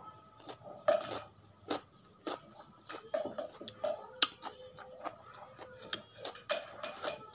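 A person chewing crunchy pickled cucumber (asinan timun) close to the microphone: irregular crunches and sharp clicks, a few to the second.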